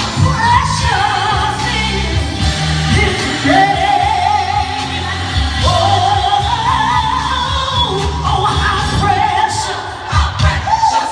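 A woman singing a gospel song solo, holding long notes with a wavering vibrato.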